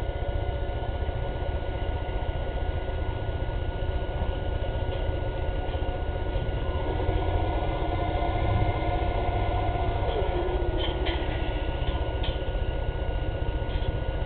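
A fishing boat's diesel engine running steadily under load as the boat breaks ice, with a low rumble and a slight drop in pitch about ten seconds in.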